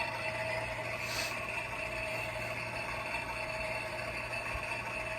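Battery-powered toy washing machine running its water-in cycle: a small electric motor whirring steadily with a constant whine.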